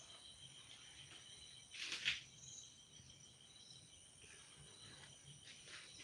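Quiet: faint, steady, high-pitched chirring of insects, with one brief soft rustle about two seconds in.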